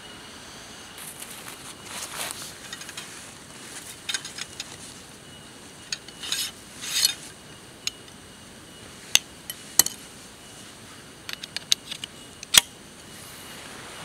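Metal tent poles and stakes being handled: bursts of rustling and a series of sharp metallic clinks, the loudest clinks in the second half.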